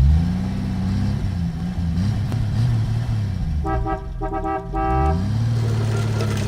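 Car engine revving up and accelerating, its pitch climbing at the start and again about five seconds in. Three short car-horn beeps sound over the engine between about three and a half and five seconds in.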